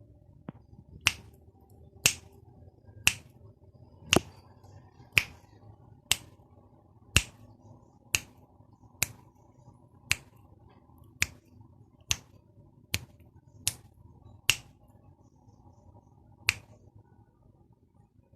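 Finger snaps, about one a second, some sixteen in all with a short gap before the last, each sharp snap toggling a sound-activated clap switch circuit on or off.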